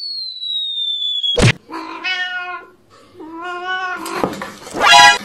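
A cat meowing in two drawn-out, wavering calls, then a louder one near the end. Before them, a high tone glides down and ends in a sharp knock.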